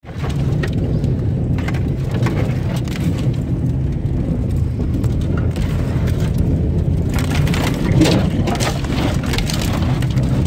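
Vehicle driving slowly over a snow-covered road: a steady low rumble of engine and tyres, with crunching and crackling from the snow under the tyres, heavier about seven to nine seconds in.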